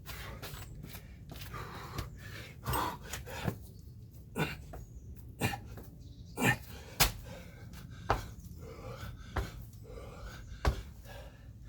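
A man panting and gasping hard from exertion, with a series of sharp thuds as his feet and hands land on the floor during burpees and jump squats.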